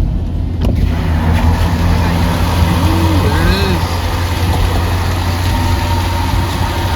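Car engine and tyre noise heard from inside the cabin while driving, a steady low drone. A brief wavering vocal sound from a passenger about three seconds in.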